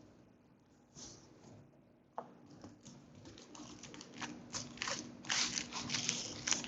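Hands handling trading-card packaging: a couple of sharp clicks, then crinkling and rustling of plastic and foil wrapping that grows denser and louder in the second half.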